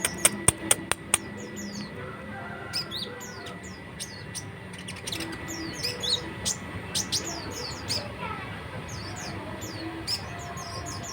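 A konin songbird in rapid chattering song ('nrecet'). A run of sharp clicks comes in the first second, then from about three seconds in there are quick, high, falling chirps in busy runs.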